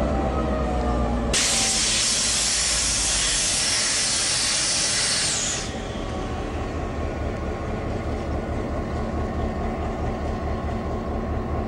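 Clyde EMD S class diesel locomotive standing with its train: a loud hiss of released compressed air starts suddenly about a second in and cuts off about four seconds later, leaving the locomotive's diesel engine idling with a steady throb.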